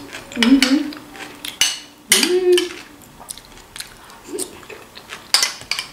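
Metal spoon clinking and scraping against a bowl, with spooning and eating sounds in short sharp clicks. Twice a short hum without words breaks in, early and about two seconds in.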